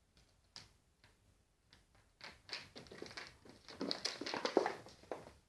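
Thin twigs rustling and scraping over a wooden floor as a kitten paws and drags them, with a few light taps at first and then a busy spell of rustling that is loudest past the middle and stops near the end.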